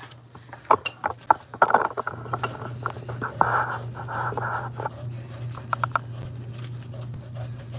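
Wooden spoon stirring ground beef gravy in a cast iron skillet, scraping the pan bottom with irregular knocks against the iron as water lifts the browned bits, over a steady low hum.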